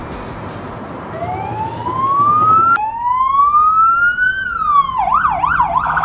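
Police car siren: two slow rising wails, the first cut off abruptly, then a falling sweep into a fast warbling yelp, over car road noise at the start. It is the siren of a traffic stop for speeding.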